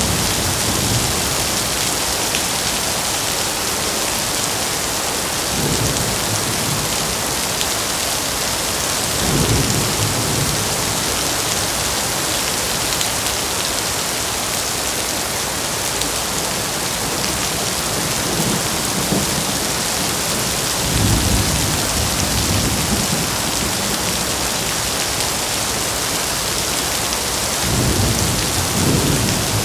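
Heavy rain falling steadily, with low rumbles of thunder that swell and fade every few seconds.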